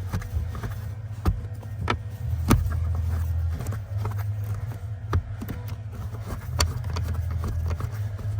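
Sharp clicks and knocks of a flathead screwdriver working screws and plastic trim loose under a car's dashboard, a handful of separate strikes over a steady low hum.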